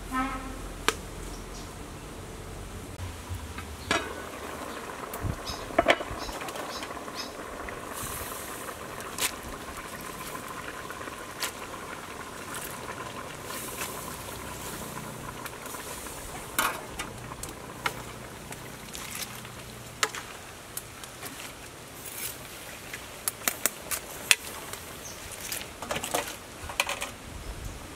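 A pot of pork rib soup simmering, with scattered clinks and knocks of a metal ladle against the aluminium pot as water spinach is stirred in. The knocks come thickest near the end.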